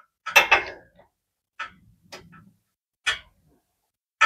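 Sharp metal clinks and taps at irregular intervals, the loudest cluster less than a second in, from a spark plug socket and extension knocking against a small riding-mower engine while a spark plug is threaded into the cylinder head by hand.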